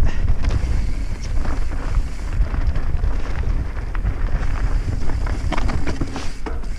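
Wind buffeting the microphone during a fast descent down a rocky trail, mixed with frequent small knocks and rattles from going over loose stones.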